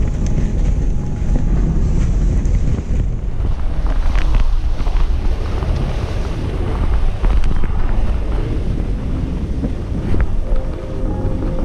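Wind buffeting the microphone over the steady low rumble of a vehicle driving along a rough dirt road, with a few short rattles about four seconds in.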